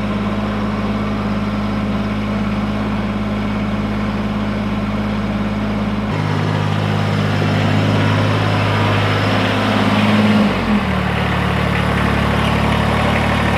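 Kubota BX2380 compact tractor's three-cylinder diesel engine running steadily as the tractor is driven. Its tone shifts abruptly about six seconds in, and near the end the engine speed falls and it runs on at a lower pitch.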